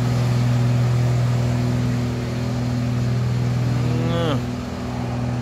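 Hino FM2P truck's P11C diesel engine pulling hard with a loud, steady drone, sounding like it has a broken exhaust pipe. About four seconds in, a sharp falling whine is heard and the engine sound dips briefly.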